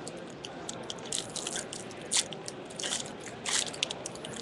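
Trading cards and their pack wrapping being handled: a run of crinkling and rustling, with louder crackles about two seconds in and again about three and a half seconds in.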